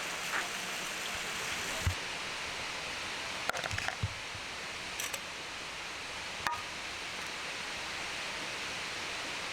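Steady rushing noise, with a few light clicks and taps around the middle.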